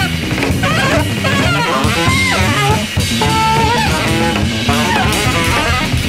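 Jazz band playing: electric bass and a busy drum kit with cymbals under a reed instrument's wavering melody.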